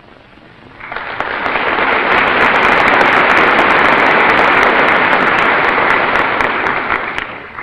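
A large audience applauding: a steady round of clapping that builds about a second in and dies away near the end.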